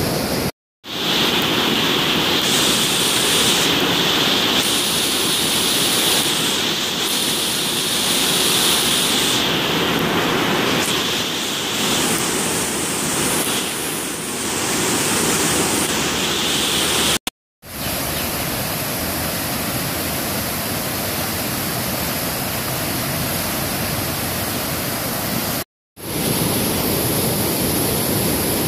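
Muddy water rushing and churning through a barrage's gates: a loud, steady rush of water that cuts out for a moment three times.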